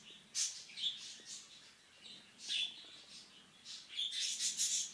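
Green-cheeked conure making short, high chirps and kissy smacking sounds, spaced out at first and then several in quick succession near the end.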